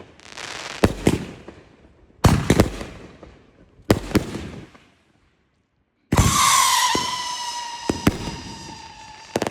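Consumer fireworks going off: sharp bangs with crackling tails three times in the first four seconds. After a short gap comes a long shrill whistle, falling slightly in pitch over about three seconds, with a few more bangs under it.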